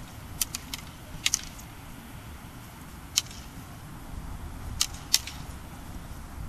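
Sparring sticks clacking against each other in sharp single strikes. There are three quick clacks within the first second, a double clack just after, one about three seconds in and two close together near five seconds, over a steady low rumble.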